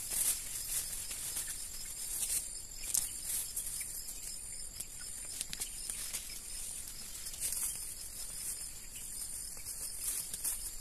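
Weeds and grass being pulled up by hand, with irregular short rustling and tearing crackles of the stems and roots coming free, over a steady high-pitched chorus of insects.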